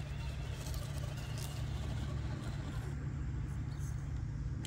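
Radio-controlled scale crawler trucks driving slowly over asphalt: a faint electric motor whine over a steady low rumble.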